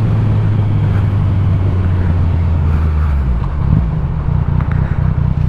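Motorcycle engine running steadily under wind noise, then its note drops about three seconds in as the throttle is rolled off, settling into a lower, uneven running.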